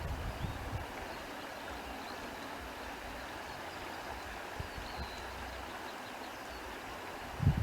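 Countryside ambience: a steady outdoor hiss with faint bird chirps scattered through it.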